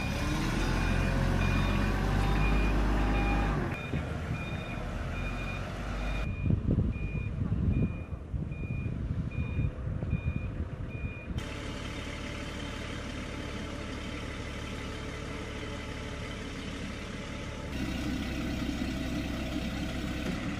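Forklift reversing alarm beeping about once a second over its running engine, with some low knocks partway through. The beeping stops about eleven seconds in, leaving a steady low machinery hum.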